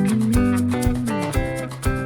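Background music: plucked guitar notes over a bass line with a steady beat.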